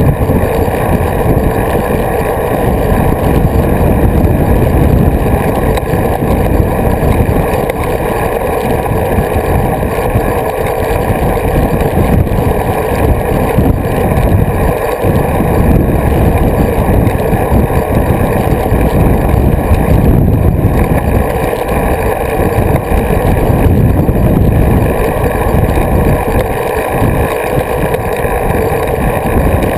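Wind rushing over the microphone of an action camera mounted on a road bicycle while riding, with tyre and road noise: a loud, steady rumble.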